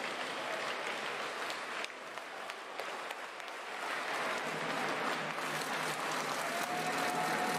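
Crowd of spectators in an ice hockey arena clapping and cheering, with scattered sharp clicks, growing louder about halfway through. A steady horn-like tone comes in near the end.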